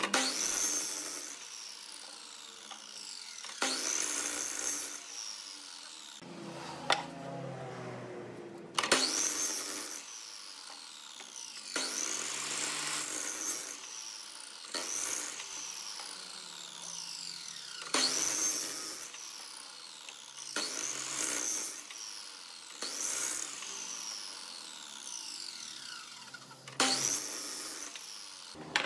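Miter saw crosscutting a wooden board again and again: about nine short cuts, each a sudden burst of motor and blade through the wood followed by a falling whine as the blade spins down.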